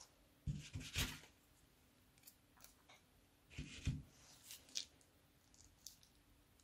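Small plastic bag filled with clay crinkling as a hand handles and squeezes it, in two short bursts about three seconds apart, with a few light clicks after the second.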